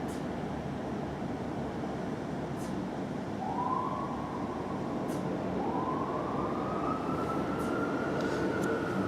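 Fire apparatus siren winding up over steady engine and traffic rumble: a short rise about three seconds in, then a slow wail that climbs and holds at its highest pitch near the end.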